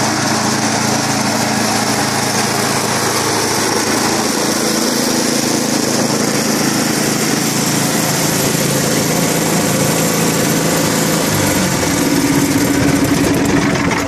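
Toro Power Shift 1028 snowblower's 10 hp Tecumseh engine running steadily. Its note changes about twelve seconds in, then it stops abruptly at the end.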